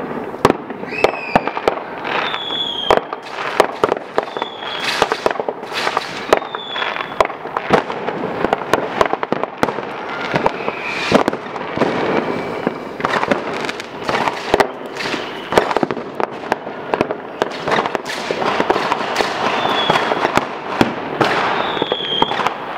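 New Year's Eve fireworks going off all around: a dense, irregular run of bangs from firecrackers and bursting rockets over constant crackling, with short whistles from rockets now and then.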